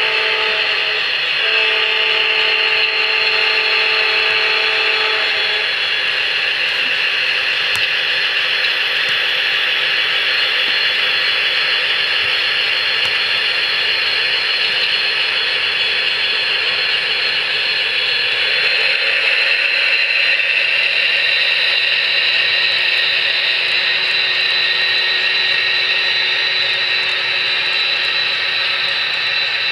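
Model diesel locomotive's QSI sound decoder, in an Atlas GP40-2, sounding its horn in two blasts: the first ends about a second in, the second runs from about 1.5 s to about 5 s. Then the train runs on with a steady mechanical drone as it rolls past the crossing.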